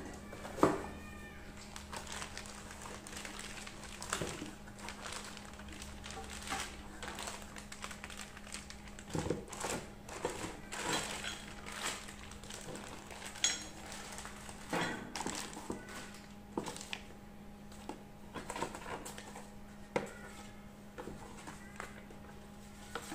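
Cardboard box and plastic-wrapped parts of a GIVI rack kit being unpacked by hand: plastic bags crinkling, cardboard flaps and parts knocking and rustling in irregular bursts, the sharpest knock about half a second in, over a steady low hum.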